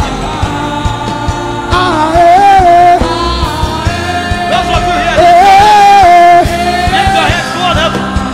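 Gospel worship music: an ornamented, wordless lead melody with long held notes over sustained keyboard chords and a light beat.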